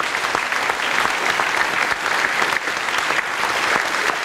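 Audience applauding: many people clapping steadily in a church.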